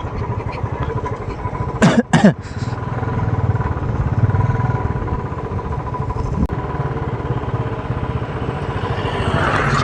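Royal Enfield Classic's single-cylinder engine running steadily while the motorcycle is ridden at an easy cruising pace, with road and wind noise. A brief sharp sound cuts in twice about two seconds in.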